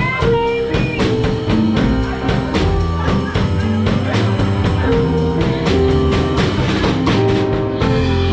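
A live band playing, with guitar and a drum kit.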